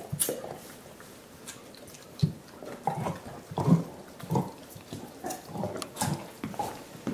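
Dogs slurping and chewing on soup bones: wet, uneven sucking and licking sounds, like the end of a milkshake through a straw. They are quiet for about the first two seconds, then come every half second or so.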